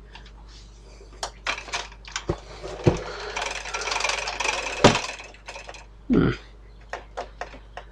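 Metal turntable chassis and panels being handled: scattered light clicks and knocks, then a few seconds of scraping and sliding with a sharper knock near the end of it.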